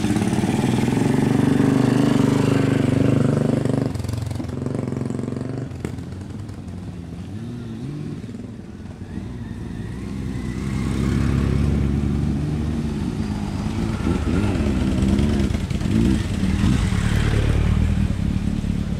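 Several cruiser motorcycles ride past one after another at low speed, their engines running and revving a little. They are loud in the first few seconds, fainter for a while, then loud again through the second half as more bikes come by.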